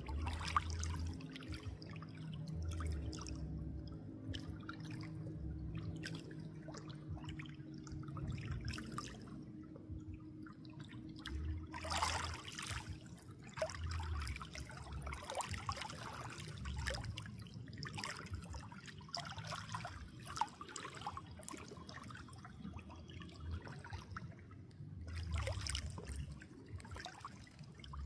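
Water trickling and dripping in many small splashes, with louder gushes about 12 seconds and 25 seconds in.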